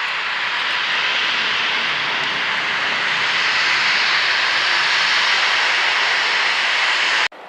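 Aircraft engines running, a loud steady rushing noise that swells slightly and then cuts off abruptly near the end.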